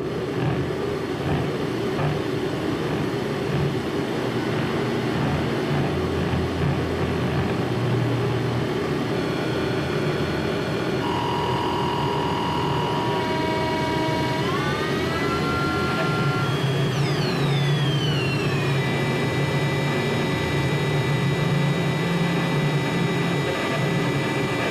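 Noise music: a loud, dense wall of rumbling noise. Thin high tones enter about ten seconds in, several slide upward, then one sweeps down from high and holds steady to the end.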